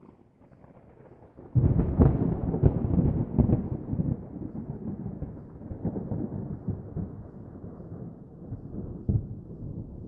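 A wire electric-fan guard used as a bird trap drops over a pigeon about a second and a half in. The trapped pigeon then beats its wings against the metal guard on concrete, a dense rattling clatter that is loudest at first and slowly dies down.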